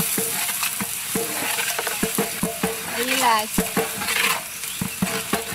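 A long-handled metal ladle stirring and scraping in a large metal cooking pot, with many short knocks against the pot over a steady sizzle of frying.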